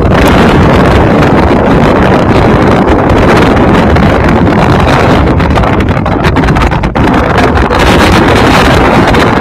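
Strong wind buffeting a phone's microphone: loud, continuous wind noise with a brief dip about seven seconds in.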